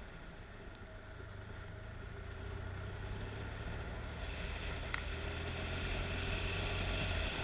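BMW adventure motorcycle engine running under way on a dirt forest road, growing louder over the second half as the bike picks up speed. A single sharp click about five seconds in.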